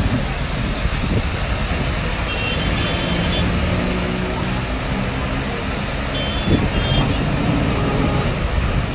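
Water rushing steadily from a burst water main, mixed with the engines of vehicles driving through the jet and the flooded road; a low engine hum swells through the middle. Short high-pitched tones sound twice, about two and a half and six and a half seconds in.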